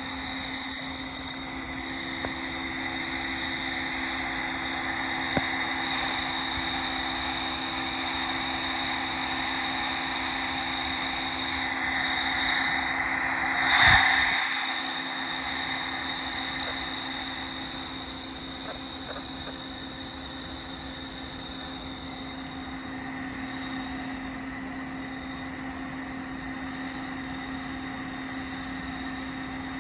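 Kenworth's Bendix air dryer purge valve leaking air with a steady hiss over the truck's running engine hum; about halfway through, a sharp blast of air from the purge, after which the hiss dies back and the engine hum carries on.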